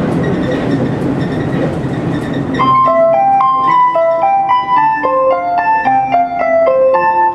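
Rumble of a JR Shikoku 2000-series diesel train running, then about two and a half seconds in the Shikoku chime starts over the train's PA: a short melody of clear notes that signals the automatic arrival announcement about to follow.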